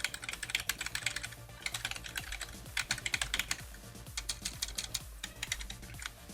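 Fast typing on an A4TECH Bloody B820R mechanical keyboard with linear red Light Strike switches: quick runs of key clacks in bursts, the sound coming from each keycap striking the keyboard's top panel.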